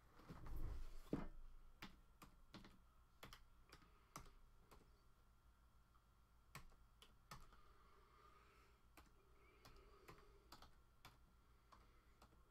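A computer keyboard set down on a table with a low thump about half a second in, then typing: scattered, irregular key clicks with short pauses between them.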